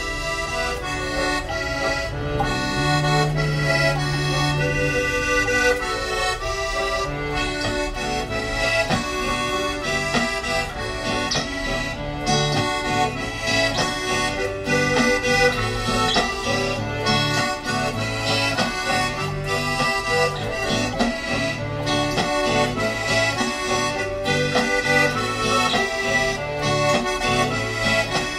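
Accordion-led, fast folk-punk music with a steady beat, in an instrumental stretch without singing.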